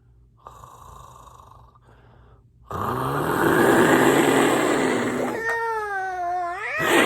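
A person voicing an exaggerated snore: a faint breath, then a loud rasping snore starting about three seconds in, ending in a pitched, wavering voiced tone near the end.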